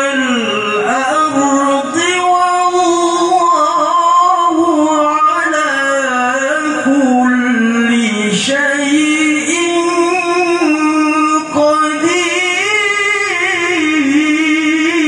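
A qori, a man with a high voice, chanting the Quran in the melodic tilawah style. He holds long notes with wavering, ornamented turns and pauses briefly for breath about two, eight and eleven seconds in.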